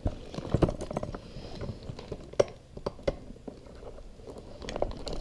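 Irregular clicks, taps and rattles of a plastic wiring connector being pushed and wiggled onto the idle air control valve of a Nissan Pathfinder throttle body by gloved hands, the sharpest knock a little over two seconds in.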